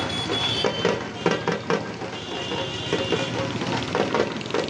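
Loud, dense din of a street procession: crowd noise over an uneven run of sharp beats, with a tractor engine humming underneath.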